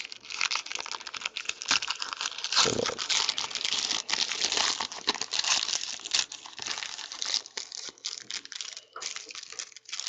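Plastic wrapping on trading-card packaging being crinkled and torn open, an irregular crackling that thins out near the end.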